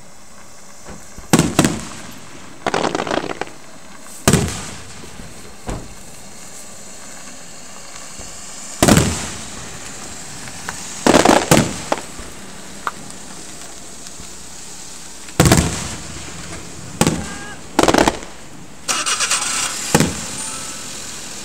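Aerial fireworks shells bursting one after another, about ten sharp bangs, each with a short echo. Several are followed by a rapid crackling burst.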